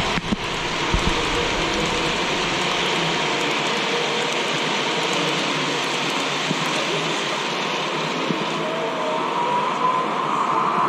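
Model trains running on a large exhibition layout: a steady rolling noise.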